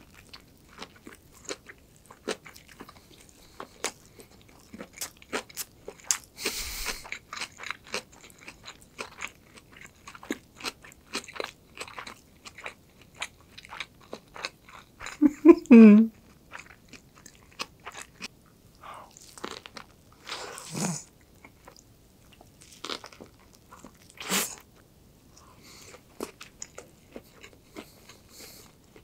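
Close-up eating sounds of a gim-gulttuk, crisp roasted seaweed wrapped around rice seasoned with sesame oil and soy sauce and filled with kimchi: scattered crunchy bites and wet chewing. About halfway through comes a short pitched sound from the eater's throat, the loudest moment.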